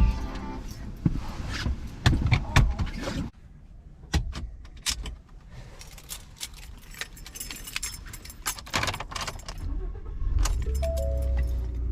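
Car keys jangling with sharp clicks of handling inside a car. About ten seconds in, a low steady hum begins and a short stepped chime sounds, repeating once.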